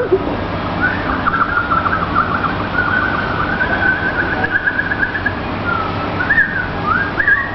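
A man whistling a fast birdlike warble: rapid trills that hold for about four seconds, then a few short sliding notes near the end.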